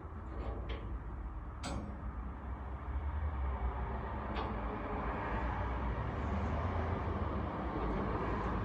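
A few sharp metallic clinks, the loudest about a second and a half in, of a crowbar working against a padlock, over a steady low rumble that grows louder about three seconds in.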